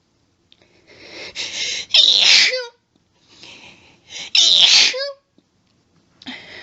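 A woman sneezing twice in an allergic fit. Each loud sneeze is preceded by a hitching intake of breath, and another hitching build-up starts near the end.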